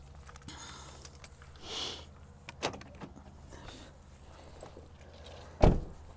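Car door shut with a single heavy thump near the end, after light clicks and jingling like keys being handled.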